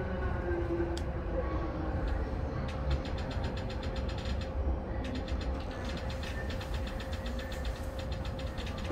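Yamanote Line commuter train heard from the cab: a steady low rumble with a constant hum, and a run of faint rapid ticks in the second half.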